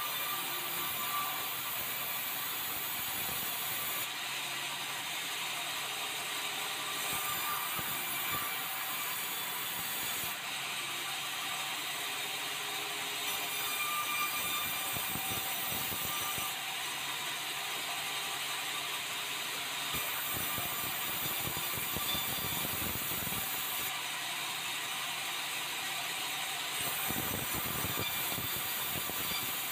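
Sawmill band saw running steadily, its blade ripping lengthwise through red meranti boards as they are fed through.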